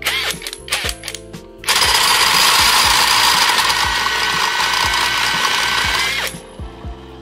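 Cordless impact driver spinning a car alternator's shaft, belted to an electric motor, to light bulbs wired to the alternator. A few short bursts come first; then about a second and a half in, it runs steadily and loudly for about four and a half seconds and cuts off suddenly. Background music with a steady beat plays underneath.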